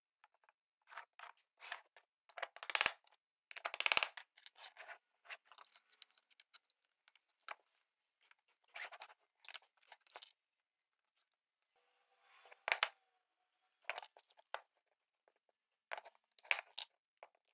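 Small metal hardware and tools handled on a plywood workbench: irregular clicks, scrapes and light knocks as a hex key tightens shaft-support clamps, a lead screw and steel rods are fitted, and plywood plates are moved.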